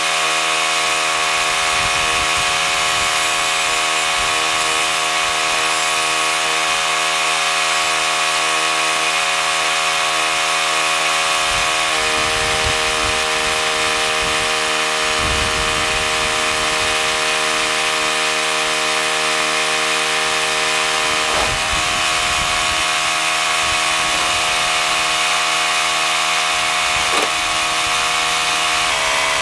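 An engine running steadily, an even hum whose pitch steps slightly a few times, with a few low thumps.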